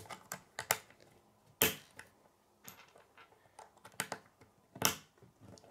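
K'nex plastic rods and connectors clicking as they are pressed together, with a scatter of light clicks and two sharper snaps, one about one and a half seconds in and one near the end.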